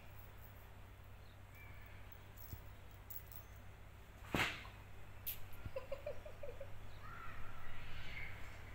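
Domestic cat vocalising while at play: a short rapid chirping trill, then a longer meow-like call near the end. There is one sharp click about halfway through.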